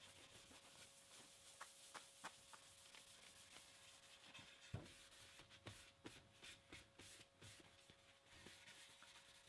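Faint rubbing of a paper towel buffing wipe-on polyurethane over a wooden guitar body, with scattered small clicks and a soft knock about five seconds in.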